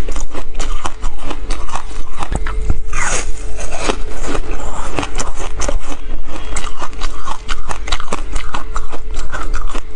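Frozen passion fruit ice, seeds and pulp set in a thin sheet, being bitten and crunched between the teeth close to the microphone, a fast, irregular run of sharp cracks and crackles that never stops.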